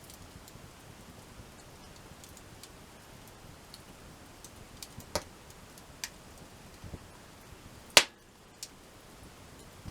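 Wood campfire crackling, with scattered small ticks and a few sharp pops, the loudest a single crack about eight seconds in.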